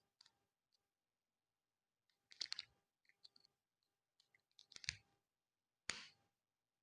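Faint clicking and clatter of small snap-fit model-kit parts being handled and fitted together, in three short bursts about two and a half, five and six seconds in.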